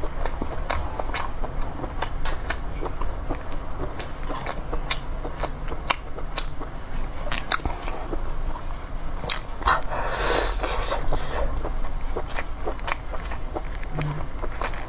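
Close-miked chewing and biting of soft braised intestine, many sharp, wet mouth clicks and smacks, with one longer, louder wet noise about ten seconds in.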